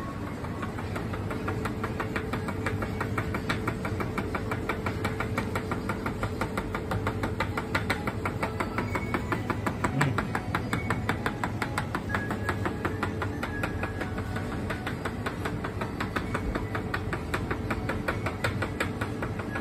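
Steady hum of convenience-store drink machines, with a rapid, even ticking throughout.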